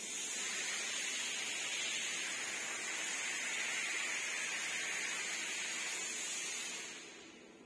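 Steady hiss of compressed air from a pneumatic tool, with a thin high whistle over it, fading away near the end.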